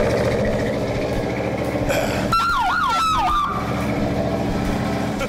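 Ford Gran Torino's engine running steadily at idle. About two seconds in, a siren gives a short yelping wail of three quick sweeps, lasting about a second.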